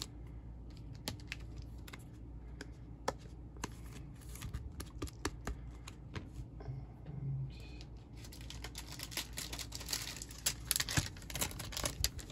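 Light clicks and ticks of trading cards and a rigid plastic top loader being handled, as a card is slid into the holder and the cards are set down on a table. The ticking gets busier in the last few seconds.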